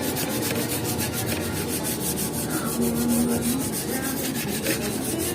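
Sandpaper rubbing over the wooden koi fish cut-out in quick, even strokes: the scratchy rasp of sanding the scroll-sawn piece smooth.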